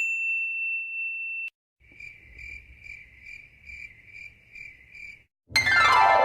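A steady high beep that cuts off about a second and a half in, then the cricket-chirping sound effect, about two chirps a second for roughly three seconds. Near the end a loud sound starts whose many pitches slide steadily downward.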